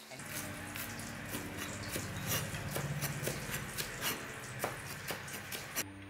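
Hot oil frying in a pan: a steady hiss with many irregular sharp pops and crackles. The hiss stops abruptly near the end.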